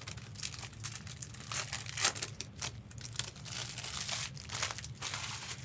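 Trading card pack wrappers crinkling and tearing as packs of Topps Chrome cards are ripped open and handled, in irregular crackles, a little louder about two seconds in.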